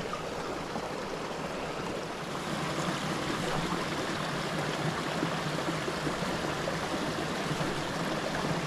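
Small brook running in a shallow riffle over rocks: a steady rushing and babbling of water, a little louder from about two and a half seconds in.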